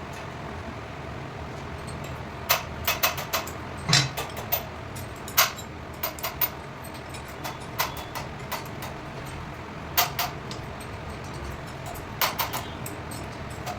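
Scattered sharp clicks and knocks, some single and some in quick clusters, over a steady low hum. The first come about two and a half seconds in.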